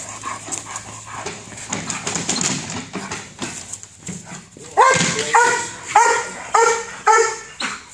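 Belgian Malinois police dog barking, a run of about six sharp barks roughly half a second apart in the second half.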